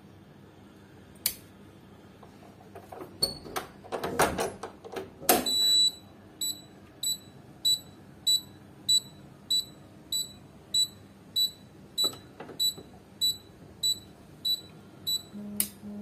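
Piezo buzzer of a homemade 9 V battery door alarm set off, sounding a short high beep about one and a half times a second. Before it come a few seconds of clicks and clatter as the circuit is handled, and there is another click near the end.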